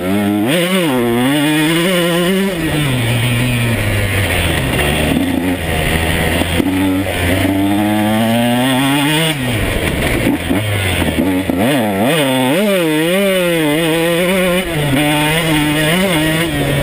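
2013 KTM 125 SX two-stroke single-cylinder engine under hard riding, its pitch repeatedly climbing as it is revved and dropping at gear changes and off the throttle.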